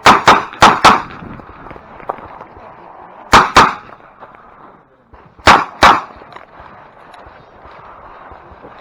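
Revolver shots fired in quick pairs during a USPSA stage: two pairs in the first second, another pair about three seconds in and a last pair about five and a half seconds in, eight shots in all.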